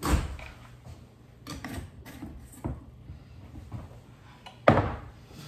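Kitchen cookware being handled: a sharp knock at the start, a few lighter knocks and clinks in the middle, and the loudest knock near the end.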